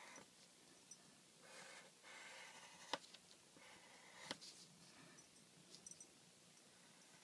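Faint scratching of a pencil on paper in short strokes, with two sharp ticks about three and four seconds in.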